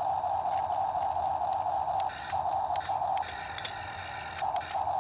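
Small electric motors of a radio-controlled toy excavator whirring as the arm and bucket are worked, stopping and starting several times from about two seconds in, with light clicks.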